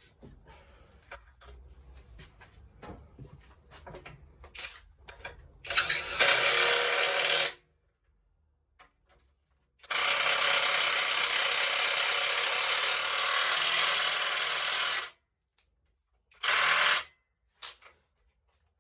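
Light clicks of parts being handled, then a power tool run in three bursts, the middle one about five seconds long, each stopping abruptly, as fasteners are run in on the subframe.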